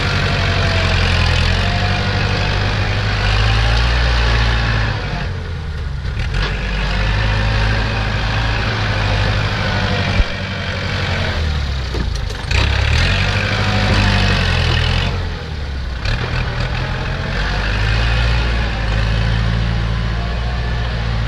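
A Kubota tractor's diesel engine and a dump truck's engine running together as the tractor works the dumped soil. The engine note rises and falls several times.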